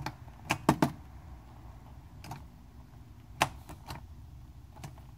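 Push-button test switches on a B&K Dyna-Jet 707 tube tester clicking as they are pressed and released during a tube test: a quick run of three sharp clicks about half a second in, then single clicks every second or so, over a low steady hum.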